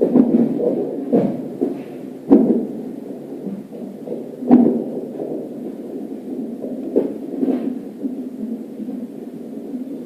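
Hiccups of an unborn baby at 34 weeks of pregnancy: a dull, heartbeat-like thump every one to two and a half seconds, six in all, over a steady muffled whoosh.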